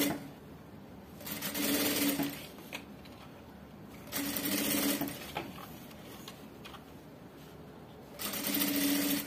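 Industrial sewing machine stitching bias binding onto a curved fabric edge in three short runs of about a second each, with pauses between them while the fabric is turned.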